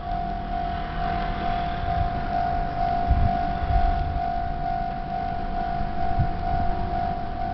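Japanese railway level-crossing alarm ringing: an electronic bell tone repeating evenly about twice a second, warning that a train is approaching. A low rumble rises briefly about three seconds in.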